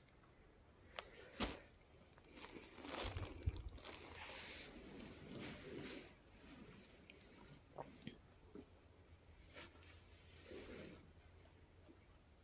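A cricket chirping in a steady, high, pulsing trill, with a few faint taps and a short thump about one and a half seconds in.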